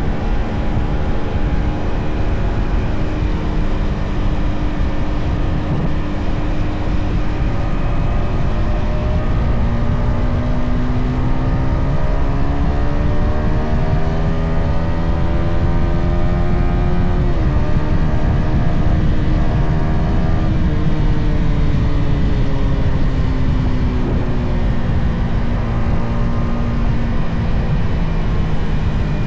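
Yamaha XSR 155's single-cylinder engine on a stock exhaust, running under way. Its note climbs steadily through the middle, drops abruptly about halfway, falls away again and picks up near the end. Heavy wind rumble on the microphone throughout.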